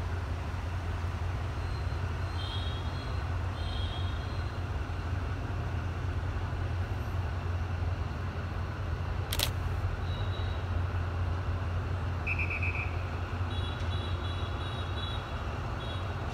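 Low, steady rumble of the D10H (DFH21) diesel-hydraulic locomotive's engine as it creeps toward the station. A few short high-pitched chirps come near the start and again near the end, and a single sharp click about nine seconds in.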